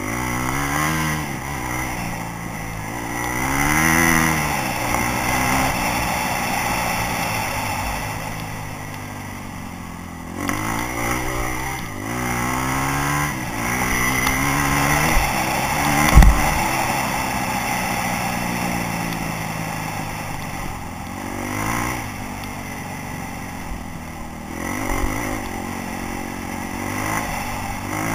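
Dirt bike engine revving up and down over and over as the rider accelerates, shifts and backs off along the trail, with one sharp thump about sixteen seconds in.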